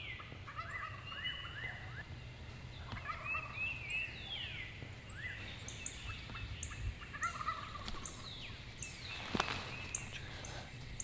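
Wild turkey gobbling several times, each gobble a quick rattling run of falling notes, with small songbirds chirping high above it and one sharp click about nine seconds in.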